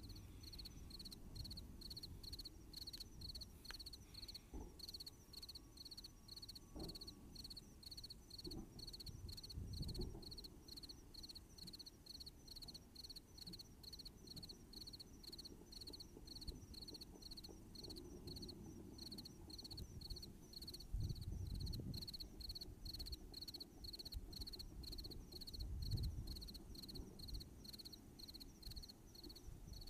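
Crickets chirping in a steady high-pitched pulse, about two chirps a second. A few low rumbling thuds stand out over it, one about a third of the way in and two more later on.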